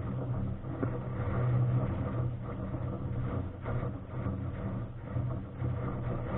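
Wind rushing over the camera microphone in flight under a paraglider: a steady low rumble that swells and eases.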